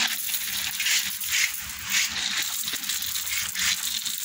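Dry cat kibble crunching and crackling in a run of short, irregular crackles over a steady hiss.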